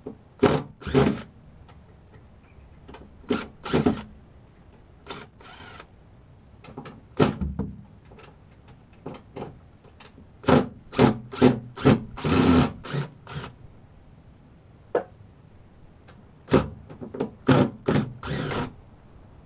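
Power screwdriver backing screws out of a wooden subwoofer enclosure, in a string of short irregular runs with a longer run about twelve seconds in.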